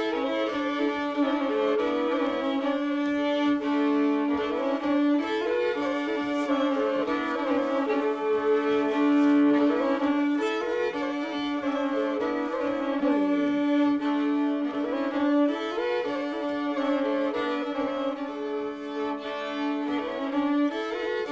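Fiddle playing a Norwegian springar dance tune, a moving melody over steady held drone notes.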